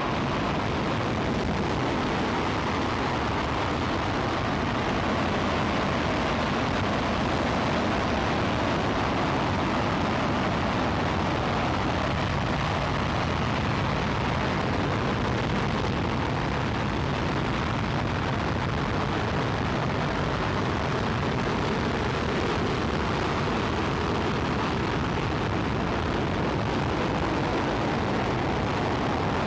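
Space Shuttle Main Engine, a liquid-hydrogen/liquid-oxygen rocket engine, firing on a static test stand: a loud, unbroken noise with a deep rumble that holds steady throughout.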